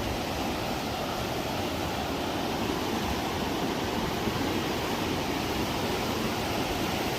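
Steady rushing of a fast river flowing beneath a footbridge.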